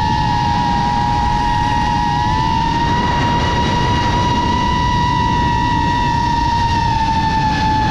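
FPV quadcopter's motors and propellers whining in a steady tone over a low rumble of rushing air, the pitch rising slightly about two and a half seconds in and dropping back near the end as the throttle changes.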